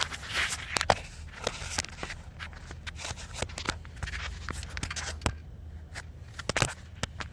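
Old electrical tape being cut and picked off a hose by hand: irregular scraping, scratching and sharp clicks, with a steady low hum underneath.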